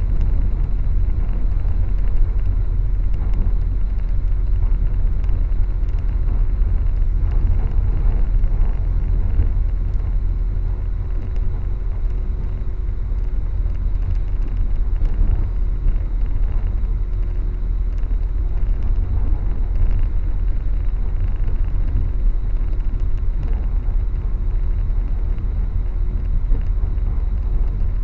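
Passenger train running at speed, heard from inside the carriage: a steady low rumble with a faint steady hum above it.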